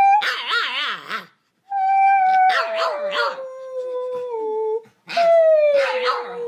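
French bulldog howling: three long howls, each starting high and sliding down in pitch, with wavering stretches along the way.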